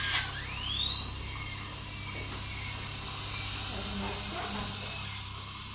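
A high whistling tone that slides upward over the first second, then holds with a slight waver, over a faint hiss.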